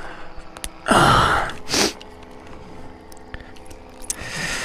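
A man breathing out heavily: a long, loud sigh about a second in, a short puff just after it, and another softer sigh near the end.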